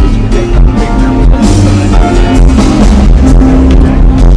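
Live band playing loudly through a PA, with a heavy bass drum pounding in the low end and pushing a phone's microphone to its limit.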